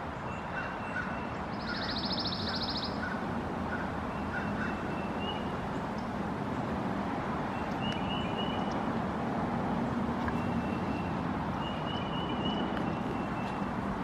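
Small birds chirping: short, thin, high chirps come in scattered groups, with a rapid trill about two seconds in, over steady background noise.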